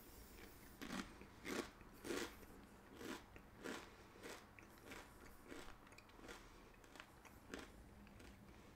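Chewing a Doritos Screamin' Sriracha tortilla chip: a run of crisp crunches, about two a second at first, growing fainter and sparser toward the end.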